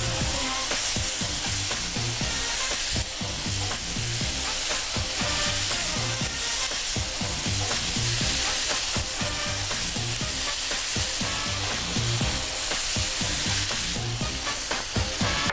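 Squid (calamari) pieces sizzling steadily on a hot ridged grill plate as they are turned by hand.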